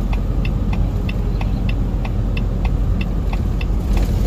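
Semi truck's diesel engine running under the engine brake on a long downgrade, a steady low rumble heard from the cab. A steady ticking about three times a second runs through it.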